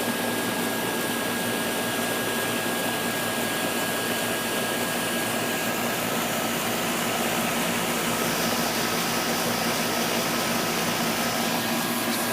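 Bryant central air conditioner's outdoor condensing unit running, with its Bristol compressor and GE condenser fan motor giving a steady whir of fan air over a constant low hum.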